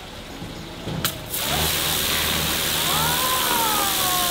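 An electric pressure washer starts with a click about a second in, then its motor hums and its high-pressure water jet hisses steadily as it blasts the scales off a large grouper.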